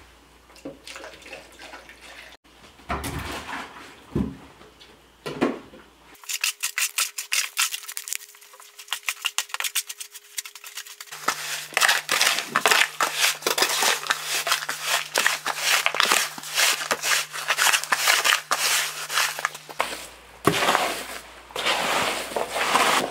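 A hoe scraping and chopping through wet concrete countertop mix in a plastic mixing trough, a quick run of gritty scrapes that grows busier and louder about halfway through. At first there are a few sparse sounds as water is poured into the mix.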